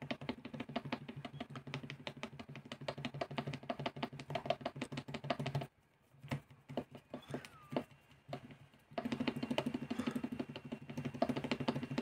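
Stream Deck XL keys tapped rapidly over and over, many clicks a second, stopping for about three seconds midway with only a few stray taps, then starting again. A steady low hum runs under the clicks.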